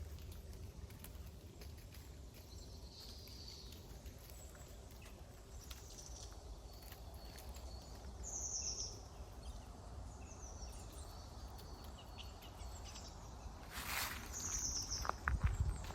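A small bird gives short, high, falling call notes every few seconds over a steady low rumble. Near the end, footsteps crunch through dry fallen leaves.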